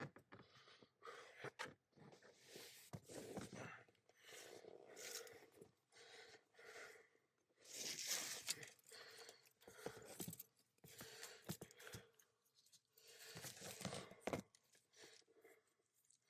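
Faint, irregular rustling and scraping of hands working on small parts close to the microphone.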